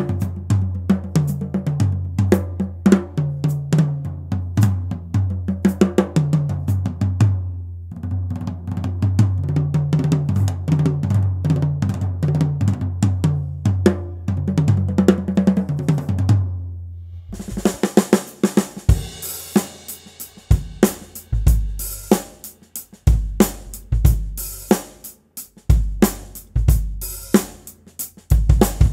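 Pearl President Deluxe drum kit, lauan shells, played with sticks in a steady groove of snare, bass drum, hi-hat and cymbals over a low bass line. About seventeen seconds in the bass line drops out, and the drums carry on alone with more cymbal wash and distinct bass drum hits.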